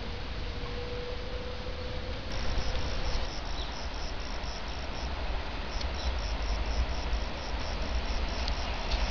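Insect chirping in quick, even, high-pitched pulses, about four a second, starting a couple of seconds in, over a steady low rumble and hiss of outdoor background noise.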